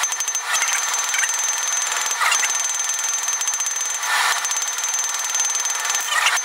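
Ball-peen hammer striking red-hot square mild steel on an anvil in a fast, speeded-up run of metallic blows over a steady high ring, with several heavier clusters of strikes.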